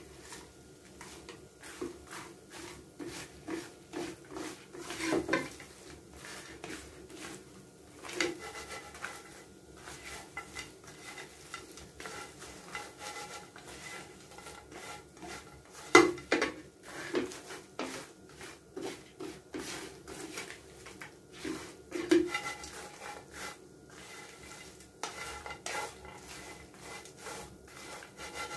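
A black spatula stirring and tossing dried anchovies (dilis) in a wide frying pan: a steady run of short scraping and clacking strokes against the pan, with a few sharper knocks, the loudest about halfway through.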